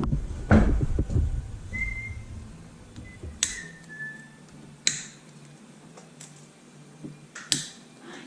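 A person whistling a few short notes. Sharp clicks and knocks come from handling tools and parts, and a heavy thump with a low rumble comes about half a second in.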